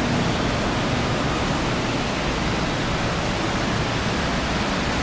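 Steady, even rushing noise of a ventilation fan or air-conditioning unit running, with no distinct tones, knocks or rhythm.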